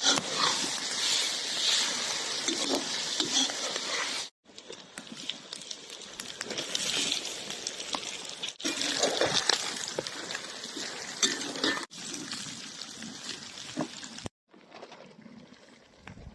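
Food sizzling and bubbling in a pot over a wood fire, a dense crackle with many small pops, in several short clips that cut off abruptly one after another; the last clip is quieter.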